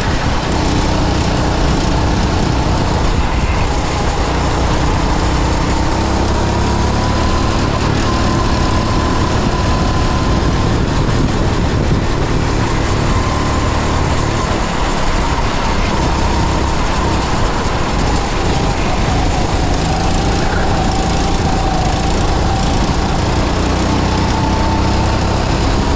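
Go-kart engine recorded onboard at speed, running continuously with its pitch rising and falling as the throttle is opened and eased, over steady road and wind noise.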